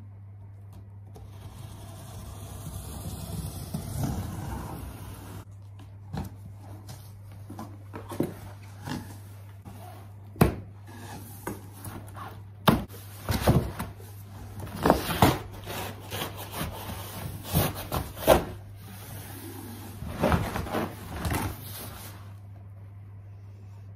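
Scissors slitting the packing tape along a large cardboard box, then the cardboard flaps and inner packing being cut free, pulled open and handled, with many sharp knocks, scrapes and rustles from about six seconds in. A low steady hum sits underneath.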